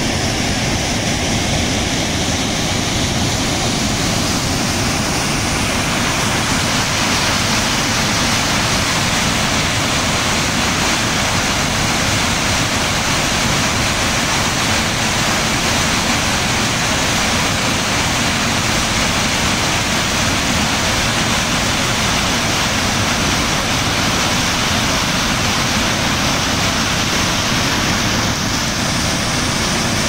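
Waterfall rushing steadily, a loud, even wash of falling water that grows fuller and brighter about five seconds in.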